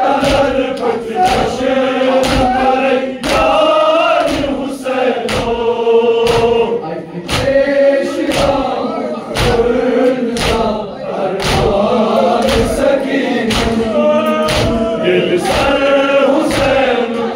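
A crowd of men chants a Kashmiri noha, a Muharram mourning lament, in unison, keeping time with matam: hand strikes on the chest come about three every two seconds.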